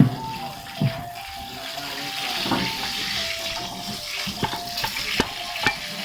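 Water running from a kitchen tap into a sink, with a few sharp knocks scattered through it.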